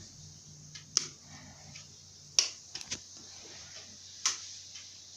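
Venti Delta New Delta Light ceiling fan running at top speed, a steady low motor hum under an airy hiss. A few sharp clicks come at irregular moments, about a second in, twice near the middle and once near the end.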